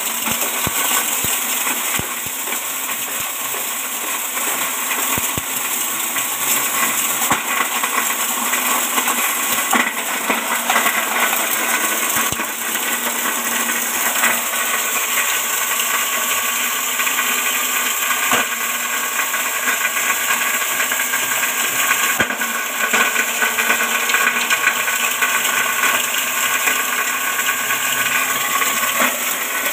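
Small belt-driven grass chopper, powered by an electric motor, running at speed: a steady whirring of the spinning blades with a scatter of small ticks as green leaves are shredded.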